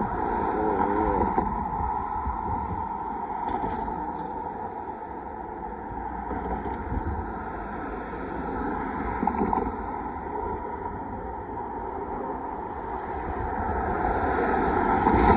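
Railroad crossing warning bell ringing steadily while the crossing signals flash ahead of an approaching train, with wind buffeting the microphone and road traffic passing over the crossing. The traffic grows louder near the end.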